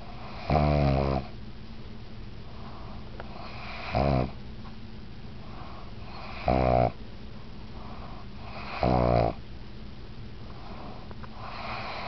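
A pug snoring while awake: four loud, pitched snores about half a second long, every two to three seconds, and a fainter one near the end.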